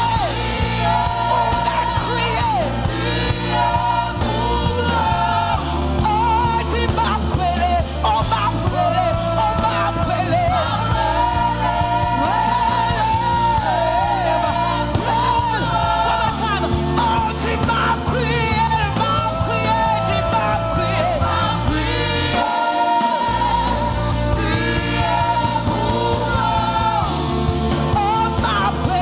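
Gospel praise-and-worship song: voices singing a melody over instrumental accompaniment with a steady bass line, which drops out briefly about two-thirds of the way through.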